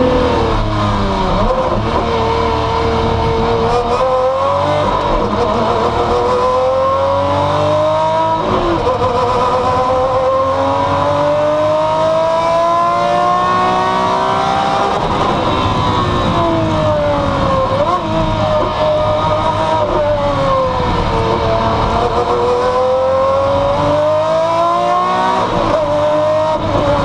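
Maserati MC12 Corsa's V12 engine heard from inside the cockpit, running hard at race pace. Its pitch climbs in long rising sweeps, dropping sharply at each upshift, and falls away with short blips of the throttle on the downshifts.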